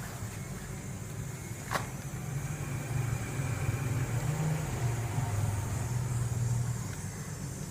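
A vehicle engine making a steady low hum that grows louder about three seconds in and eases back near the end, with a single sharp click a little under two seconds in.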